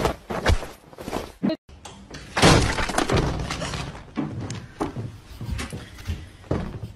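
A few sharp knocks, then about two and a half seconds in a loud crash with clattering, like things breaking, that trails off over several seconds.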